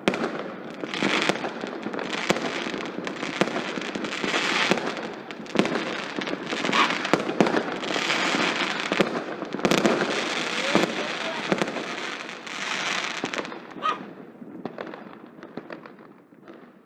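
Many fireworks going off at once: a dense stream of overlapping bangs and crackles that thins out and fades over the last few seconds.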